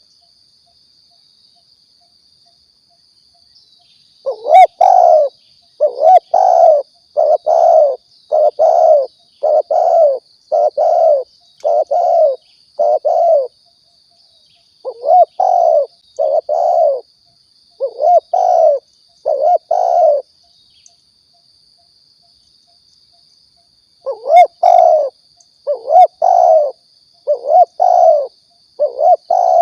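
Spotted dove cooing: short coos repeated in quick series, in three bouts with pauses of a few seconds between them, after a silent opening of about four seconds. A faint steady high-pitched whine runs underneath.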